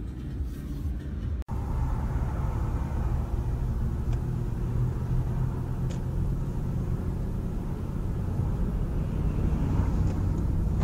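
Steady low rumble of a car driving along a city road, its engine and tyre noise heard from inside the car. The sound drops out for an instant about a second and a half in.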